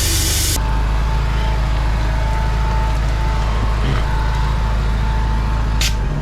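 Drain-jetting machine's engine running steadily, with the hiss of the high-pressure water jet cutting off abruptly about half a second in and a short hiss of the jet near the end.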